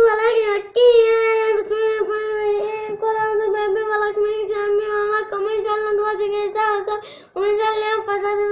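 A young child chanting a Quranic surah in a sing-song voice, holding long high notes on a nearly steady pitch. There are short breaths for pauses near the start and about seven seconds in.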